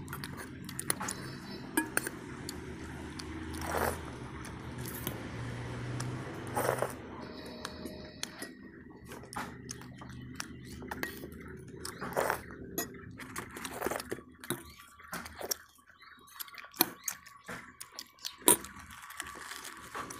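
Eating sounds: steel spoons clinking and scraping against steel bowls, with chewing, heard as scattered clicks and knocks.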